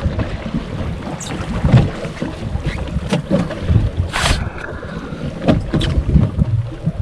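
Wind buffeting the microphone aboard a small fishing boat, with a low rumble and scattered knocks against the hull and gear. A brief hiss comes about four seconds in.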